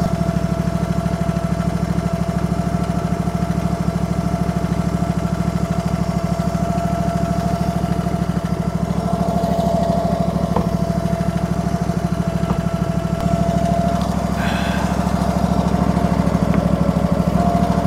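Small engine of a Cardinal shed mover running steadily at an even speed.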